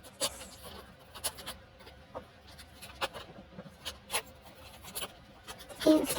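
Handling of paper and packaging: scattered rustles, taps and clicks as pages, cards and wrapping are moved. A brief pitched sound near the end is the loudest moment.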